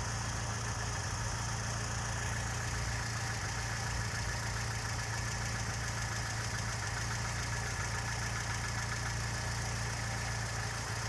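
Chevrolet Niva's four-cylinder engine idling, with a fast, even ticking knock from under the hood that becomes clearer after about two seconds. The owner hears this knock only at idle: it comes and goes, is not heard while driving, and goes away for a while after a blip of the throttle. Its cause is not known.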